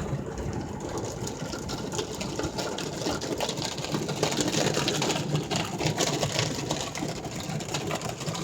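Ryko SoftGloss XS automatic car wash working over the car, heard from inside the cabin: dense rushing and spattering of water spray and wash brushes on the body, over a low machine hum.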